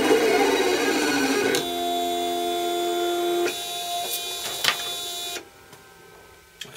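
Vinyl cutting plotter contour-cutting transfer paper: its drive motors whine in steady tones that shift pitch every couple of seconds as the knife head moves, with a click near the end. The machine falls quiet about five seconds in, the cut finished.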